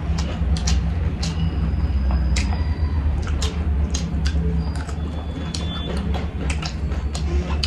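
Close-up eating sounds from two people eating rice and meat by hand: wet chewing and many short lip-smacks and mouth clicks, over a steady low hum.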